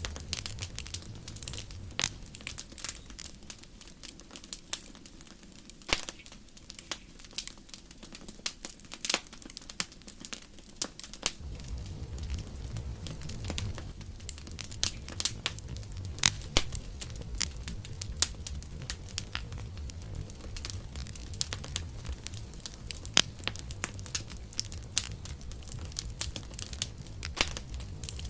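Wood campfire crackling, with frequent sharp pops and snaps. Under them is a low rumble of burning flames that drops away for several seconds and comes back about eleven seconds in.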